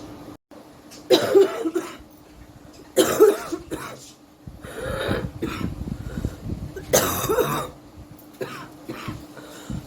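A woman coughing in several separate bouts about two seconds apart, a real cough from a heavy cold she is suffering from.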